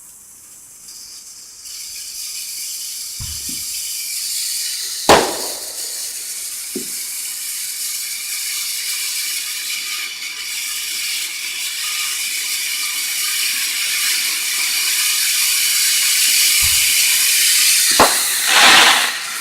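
A ground fountain firework spraying sparks with a steady hiss that builds and grows louder. Sharp firework bangs cut in about five seconds in, once more soon after, and twice near the end.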